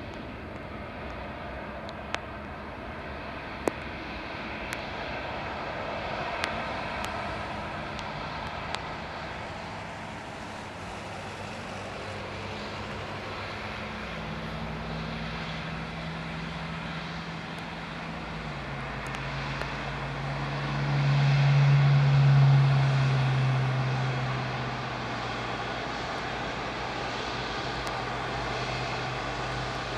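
Engines of a Boeing 777-200ER running as the airliner rolls out after landing and slows to taxi: a steady jet rumble and whine. A low droning tone steps down in pitch around the middle and swells loudest about three-quarters of the way through. A few faint clicks come in the first third.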